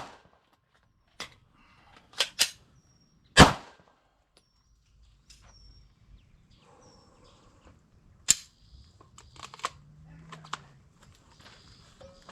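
AR-15 rifle firing single shots during a one-round, reload, one-round drill: a pair of quick shots a couple of seconds in, a loud shot about a second later, and another shot about five seconds after that, with faint clicks and rattles of magazine handling following it.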